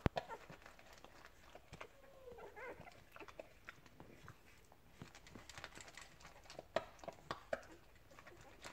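Springer spaniel eating dry kibble from a metal bowl: irregular crunching and clicks, loudest in a cluster near the end. A brief high squeak from a nursing puppy about two and a half seconds in.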